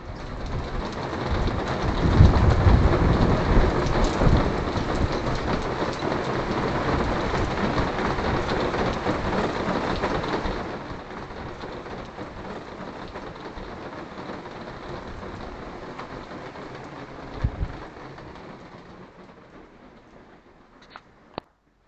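Heavy rain with a low rumble of thunder a couple of seconds in. About halfway the rain drops to a softer, steadier patter.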